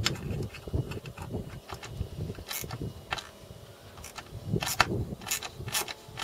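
Hand socket ratchet being worked on a bolt of a hydrofoil plate on an outboard leg: scattered sharp clicks, some in quick pairs, over low handling knocks as the bolt is snugged up before final torquing.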